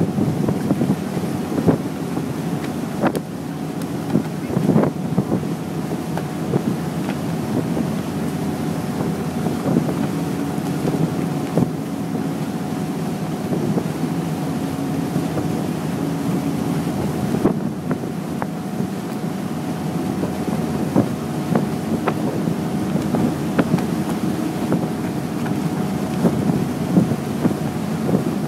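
Passenger ferry's engines running steadily underway: a constant low drone with a faint steady whine, mixed with wind noise on the microphone.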